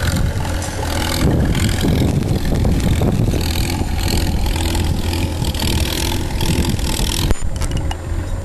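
An engine running steadily under gusts of wind buffeting the microphone. Near the end the wind rush drops off suddenly, leaving the engine hum.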